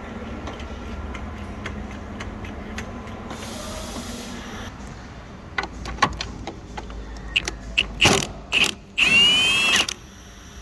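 Hand-tool work on a car's alternator pulley: metallic clicks and ratcheting, a cluster of loud knocks near the end, then a short loud whirring squeal that stops suddenly.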